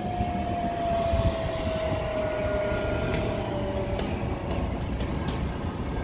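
Long Beach Transit city bus pulling away, its drive running with a low rumble and a steady whine that slowly drops in pitch and stops about four seconds in.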